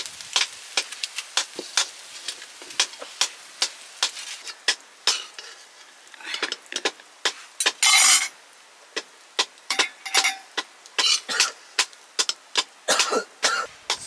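Metal spatula scraping and knocking against a metal wok while noodles are stir-fried, with a light sizzle. The strokes come as many short, irregular clicks and scrapes, with one longer scrape about eight seconds in.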